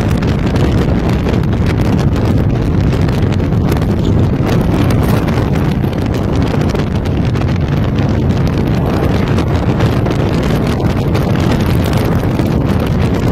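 Wind buffeting the microphone in a Ford Mustang convertible driving fast, over the steady low noise of the car's engine and tyres on the road.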